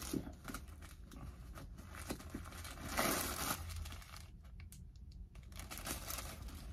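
Wadded packing paper rustling and crinkling as it is pulled out of a backpack's side pocket, loudest in a burst of rustling about three seconds in, with small scattered clicks of handling.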